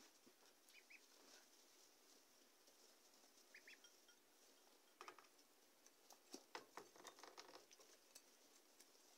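Faint scratchy rustling of week-old ducklings scrabbling about in wood-shavings bedding, with a flurry of clicks and rustles between about five and seven and a half seconds. A few short high duckling peeps come in pairs, under a second in and again around three and a half seconds in.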